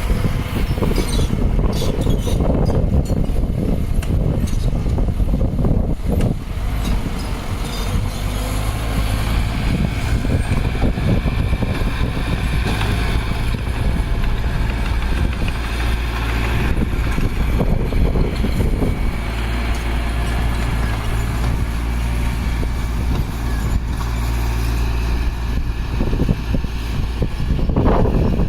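Heavy diesel earthmoving machinery running steadily under load, with a deep engine sound and a few sharp metallic clanks near the start.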